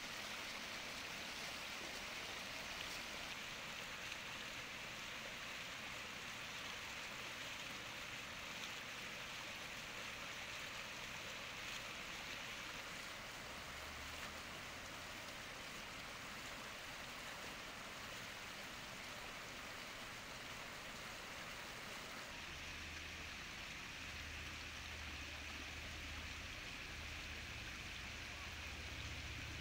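Steady rush of water flowing and splashing in a fountain, with some low rumbling in the last third.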